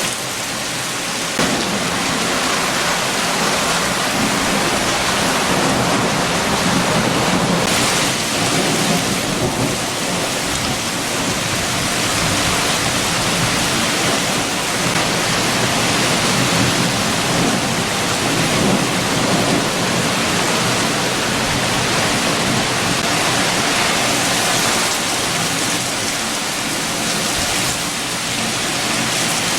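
Heavy rain and strong wind: a dense, steady rush of rain, with a deeper rumble that swells up a couple of seconds in and eases off past the middle.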